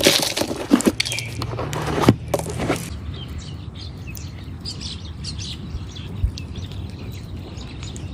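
Loud crackling, scraping noise with sharp clicks for about the first three seconds, then quieter, with birds chirping over a low steady hum.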